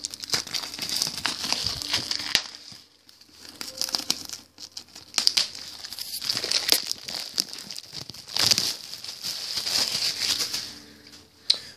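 Plastic wrapping on a boxed anime disc set being torn and peeled off, crinkling in irregular rustling bursts with short pauses.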